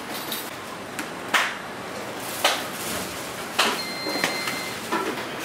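Commercial kitchen noise: steady background noise broken by three sharp knocks about a second apart, and a high steady beep lasting about a second in the later half.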